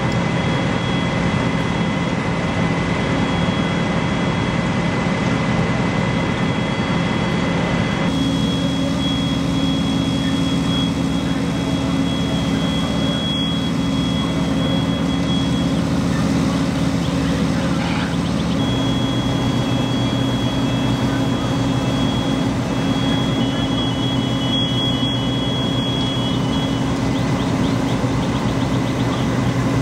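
Fire engines' diesel motors running steadily, a constant drone with a faint high whine above it. The pitch of the drone shifts abruptly twice, about eight and eighteen seconds in.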